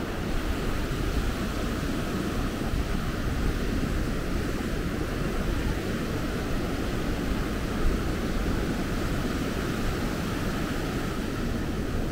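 Ocean surf breaking and washing up the sand as a steady rushing, mixed with a low rumble of wind on the microphone.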